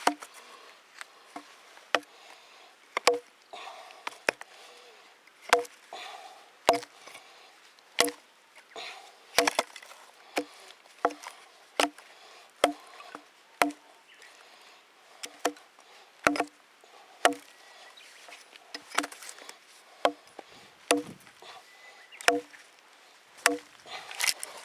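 Wood being chopped with a bladed tool: about twenty sharp strikes at roughly one a second, each with a short ringing tone.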